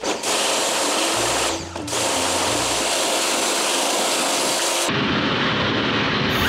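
Pressure washer jet spraying water onto plastic parts in a plastic crate: a steady, loud hiss of spray. The sound dulls abruptly about five seconds in.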